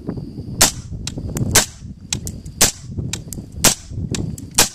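Suppressed 5.56 rifle with a 14.5-inch barrel firing XM193 55-grain rounds: five shots, about one a second, with fainter sharp cracks between them.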